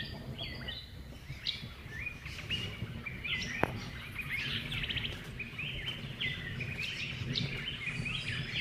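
Birds chirping and calling in many short, repeated notes, over a steady low background noise.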